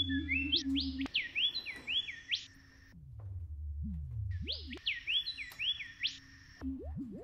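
Electronic sound design: two runs of about half a dozen quick synthesized chirps, each sweeping sharply up in pitch and dropping back, the second run starting about two seconds after the first ends. They play over a low steady hum and drone, with a few slow low sweeps in the gap.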